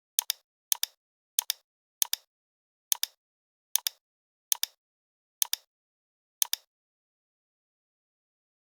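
Computer mouse button clicked nine times, each a quick press-and-release double click, about one a second, stopping about two-thirds of the way through.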